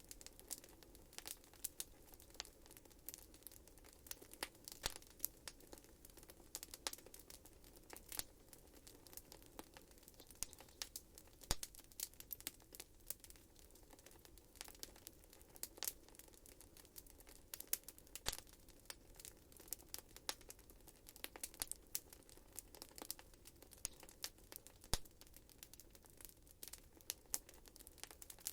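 Wood fire burning in a fireplace, crackling with many sharp irregular pops and snaps over a faint steady hiss.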